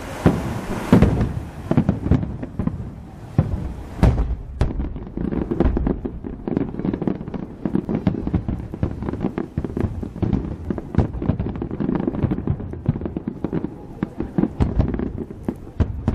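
Aerial fireworks bursting: many sharp bangs and booms in quick, irregular succession, with a hissing crackle in the first two seconds that then stops.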